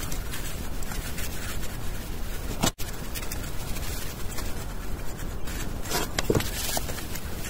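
Gloved hands pressing and smoothing wet cement mortar over a cement-soaked hat, with soft rubbing and scraping over a steady background hiss.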